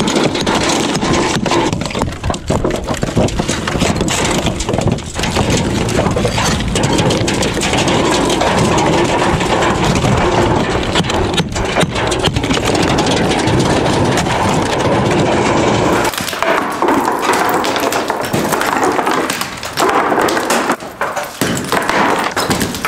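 Hammers chipping and knocking bricks and mortar loose from the top of a brick chimney, with loose bricks clattering, over heavy steady wind rumble on the microphone. The sound changes character about two-thirds of the way through.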